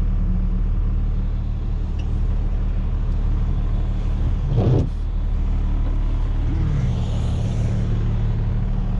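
Flatbed tow truck's engine running steadily, heard from inside the cab, with one short pitch-bending sound about halfway through.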